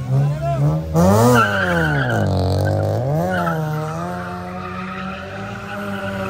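A Toyota sedan's engine revving hard while its rear tyres squeal in a drift. After a few short blips it revs sharply about a second in and falls away, then climbs again and holds high, with a steady tyre squeal over it.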